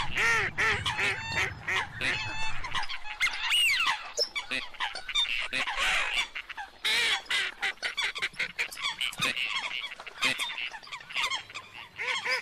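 A mixed flock of waterfowl, ducks and water hens, calling together in many overlapping calls with no break.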